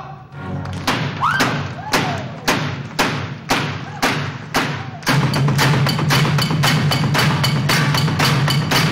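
Rhythmic stage percussion made by performers striking props such as corrugated metal sheets. Sharp hits come about twice a second, then faster at about four a second from about five seconds in, over a steady low tone.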